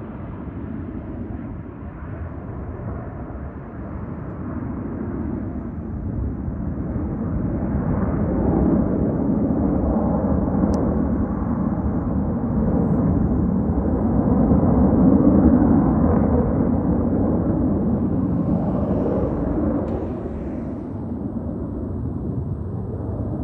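Jet engine noise from USAF Thunderbirds F-16 fighters flying past: a continuous low rumble that swells to its loudest about two-thirds of the way in, then eases off.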